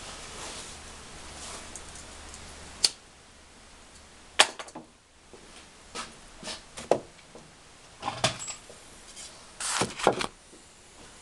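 Irregular sharp knocks and clunks, the loudest about four and a half seconds in and a cluster near ten seconds: a frozen cylinder sleeve being set into a heated Kawasaki KLR 650 cylinder and driven home with a rubber mallet and a wooden block.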